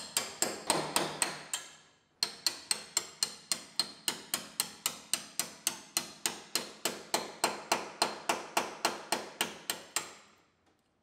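A hammer striking sheet steel in a steady rhythm, about four blows a second, with a short pause about two seconds in: knocking a drilled-out spot-welded panel loose from a rusted frame rail.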